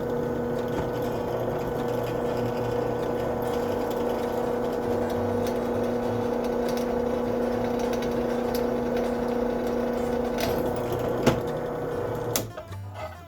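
Drill press running with a steady motor hum while drilling out a broken screw in a soldering iron body. It stops abruptly about a second before the end.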